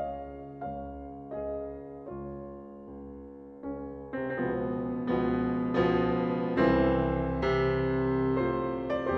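Background piano music: single notes struck and left to ring, swelling about four seconds in into fuller, louder chords.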